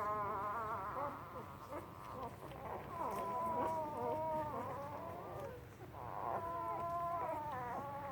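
Four-day-old German shepherd puppies whining: three drawn-out, wavering high cries with short gaps between them.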